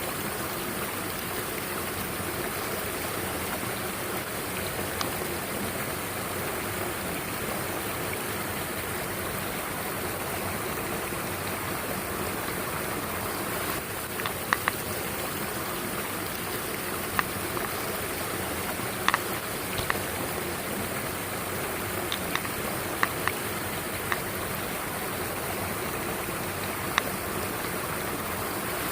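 Mountain stream flowing steadily, with a scattering of sharp short clicks or taps in the second half.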